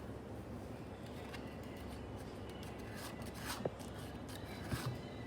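Faint, scattered clicks and soft scrapes of a frozen baking soda and vinegar mixture being crushed and stirred, over a low steady background hum.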